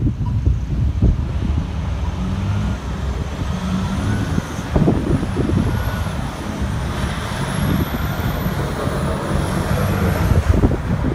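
Road traffic passing close by. A heavy semi-trailer truck hauling a tanker drives past, its engine rumbling with a whine that wavers up and down from about three seconds in until near the end. Wind buffets the microphone.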